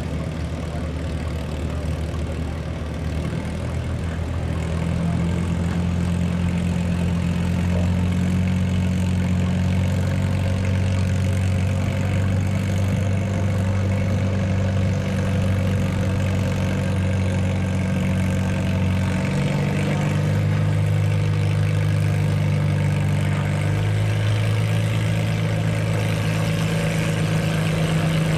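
Farm tractor engine running steadily, its pitch stepping to a new level a few times.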